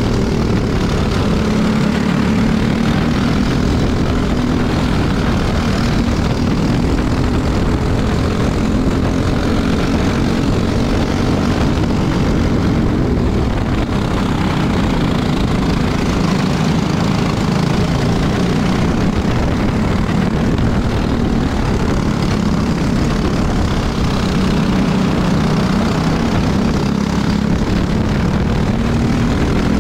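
Onboard sound of a single-cylinder four-stroke racing kart engine running hard under race load, its note rising and easing as the kart brakes into corners and accelerates out.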